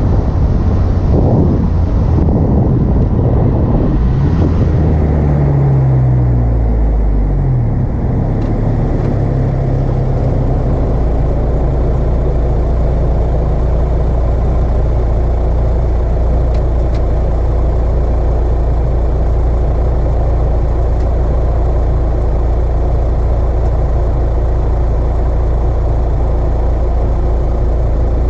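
Car engine fitted with an Acuity cold air intake: its note falls in pitch for a few seconds about five seconds in as the revs drop, then settles into a steady low drone.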